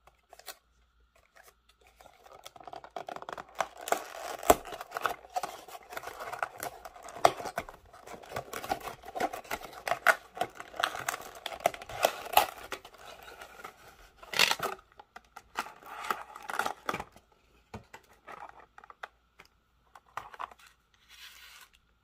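Cardboard box and clear plastic packaging being handled and opened: a long run of scratching, scraping and crinkling with many sharp clicks, one loud crackle about two-thirds of the way through, then quieter handling near the end.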